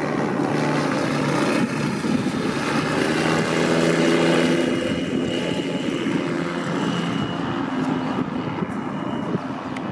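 Rotax 912 four-cylinder four-stroke engine of a Tanarg trike ultralight running steadily, turning its three-bladed composite propeller; it is loudest about four seconds in and eases off a little after.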